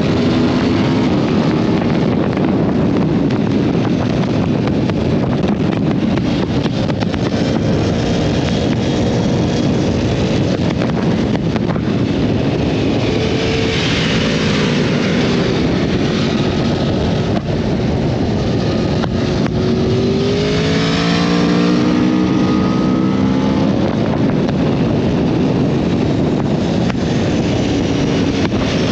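Sport motorcycle engine heard on the move, with wind rush on the microphone. The engine note rises and falls with the throttle, dipping and then climbing again about two-thirds of the way through.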